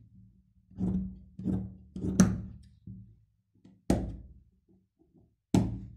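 Tailor's shears cutting through woolen suit fabric on a cutting table: five sharp snips and thunks, one to two seconds apart.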